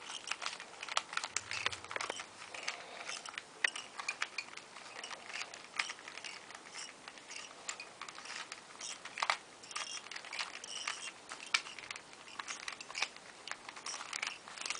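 Rubik's cubes being turned fast, a dense, irregular run of plastic clicks and rattles.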